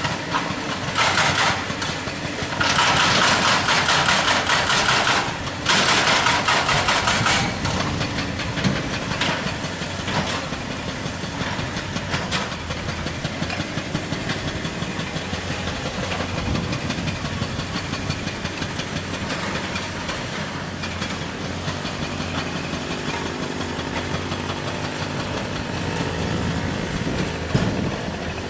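Excavator-mounted hydraulic rock breaker hammering rock in three bursts of rapid blows over the first several seconds, the longest lasting about three seconds. A diesel engine runs steadily underneath and carries on alone afterwards, its pitch shifting near the end.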